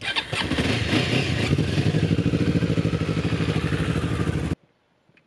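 Motorcycle engines running close by as the riders pull away, a steady, evenly pulsing engine note. It cuts off suddenly about four and a half seconds in.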